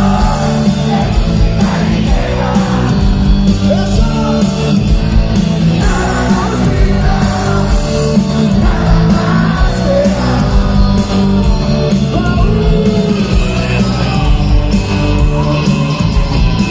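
Loud amplified live band music with a lead singer, heard from within the crowd, a heavy bass line underneath.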